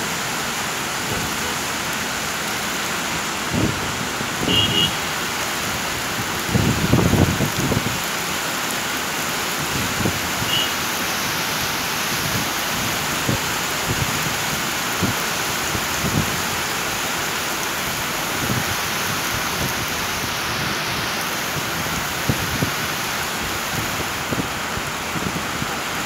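Steady hiss of heavy rain and flowing floodwater, with occasional low thumps, the strongest about seven seconds in.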